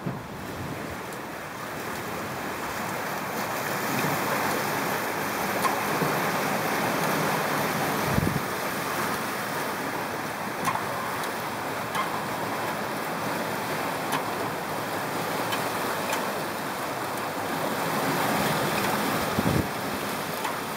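Water rushing past the hulls and wake of a sailing catamaran under way, mixed with wind on the microphone. A couple of brief low thumps come about eight seconds in and near the end.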